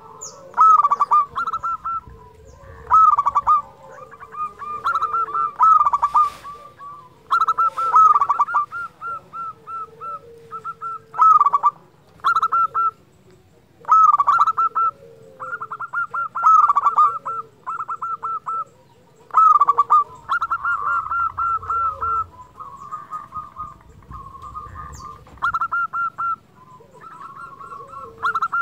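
Zebra dove (perkutut) cooing: phrases of quick, staccato coo notes repeated every second or two.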